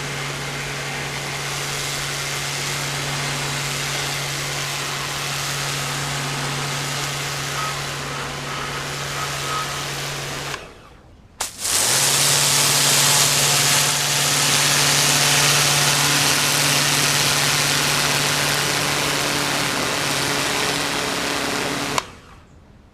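Karcher K 2.050 electric pressure washer running with its dirt blaster nozzle blasting a concrete driveway: a steady motor-and-pump hum under a loud hiss of the water jet. It stops abruptly about ten and a half seconds in, starts again louder a second later, and stops again near the end.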